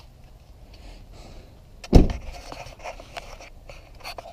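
A pickup truck door shut once with a heavy thud about halfway through, followed by faint clicks and rustling.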